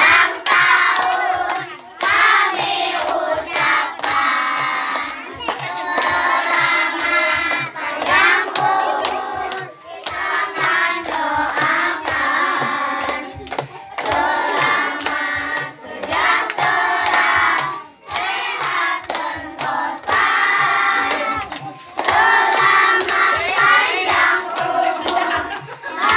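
A group of children singing together in unison, clapping their hands in time, in repeated short phrases.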